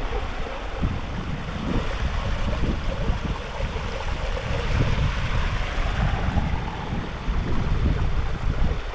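Wind buffeting the camera microphone in gusts, over a steady rushing roar.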